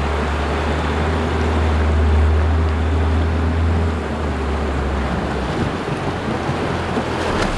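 Isuzu 4WD wading through a flowing river: its engine runs in a steady low drone while water rushes and splashes around the vehicle. The engine drone fades about five seconds in.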